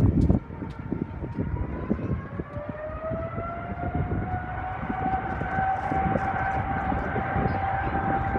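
Jet engines of a Boeing 777F (GE90s) spooling up, a whine that rises in pitch and then holds steady, over a low rumbling noise.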